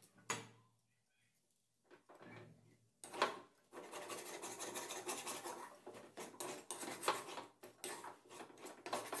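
Metal ladle scraping and stirring a mashed green-pea filling around an aluminium kadhai. A knock comes just after the start and another about three seconds in, followed by quick, steady scraping strokes for most of the rest.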